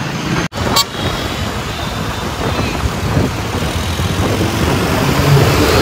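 Vehicle noise: a steady rushing rumble with no clear engine note, slowly growing louder, after a momentary break and a short click within the first second.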